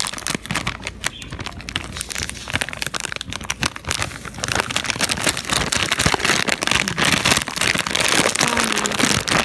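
Clear plastic bag of dry pancake mix crinkling and crackling as it is tipped and shaken to pour the powder into a bowl. The crackling grows denser and louder about halfway through.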